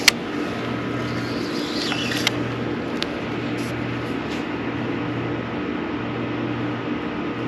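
Steady low machinery hum that swells and fades about every second and a half, over a bed of outdoor noise. A sharp knock right at the start comes from the camera being handled, and there are a couple of small clicks a few seconds in.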